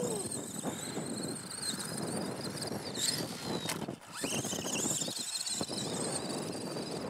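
Arrma Granite Mega RC monster truck running on a 2S LiPo: its brushed electric motor and drivetrain whine high and waver in pitch with the throttle, over a steady rushing noise. The pitch falls off once about three seconds in, and the sound briefly drops about a second later.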